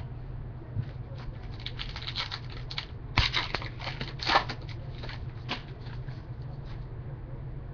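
Trading-card pack being handled by hand: a dense run of crinkles and crackles from the wrapper and cards, loudest about three and four seconds in. A steady low electrical hum sits underneath.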